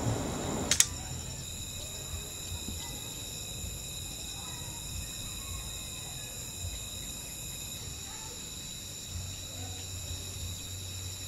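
Crickets chirring steadily in several high tones. In the first moment a gas burner's roar ends with a sharp click, under a second in.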